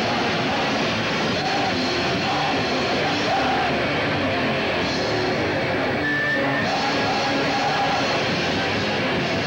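Live rock band playing loud, with electric guitars and a drum kit, heard from within the audience in a small club.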